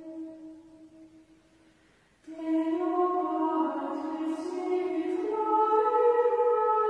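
Women's choir of Benedictine nuns singing Gregorian chant in unison. A held note fades out, and after a short near-silent pause about two seconds in, a new phrase begins on long held notes that move up and down by steps.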